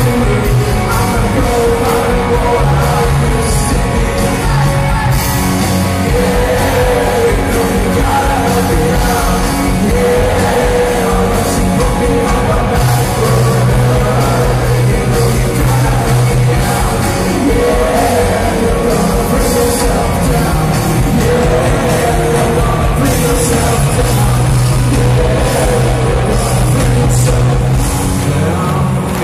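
Rock band playing live in an arena, with a singer over the band, heard from within the crowd with the hall's echo.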